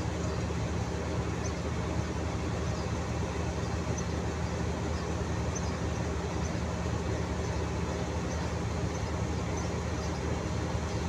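Diesel-electric locomotive engine running at low power, a steady low hum that does not change in pitch.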